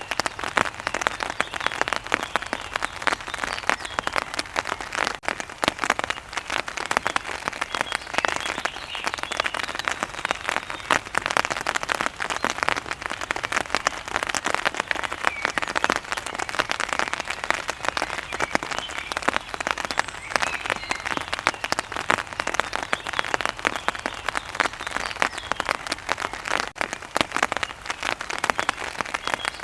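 Steady heavy rain: dense, crackling patter of drops hitting a surface, without letting up.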